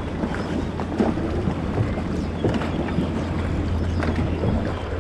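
Dragon boat paddles striking and pulling through the river water in a steady stroke rhythm, a short splash at each catch, over wind rumbling on the microphone.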